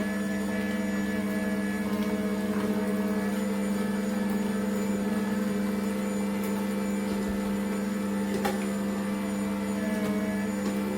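Electric motor of a cold-press slow juicer running with a steady low hum, with a few faint ticks as produce is pressed.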